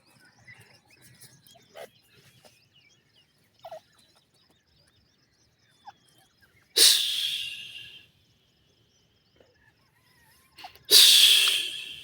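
Two loud snake hisses, the first about seven seconds in and the second about four seconds later, each starting abruptly and fading away over about a second. A few faint, short chirps come before them.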